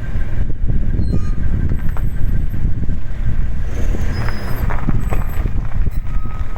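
Toyota HiAce (200 series) van moving with a steady low rumble while its disc brakes let out short, high-pitched squeals that come and go. The shop suspected a stone or a clump of brake dust caught in the brake.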